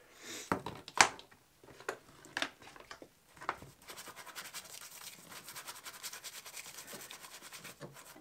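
A few knocks as corroded metal pistol parts are handled in a tray of soapy water, the loudest about a second in. From about halfway on comes a brush scrubbing the mud off a part in quick, even strokes.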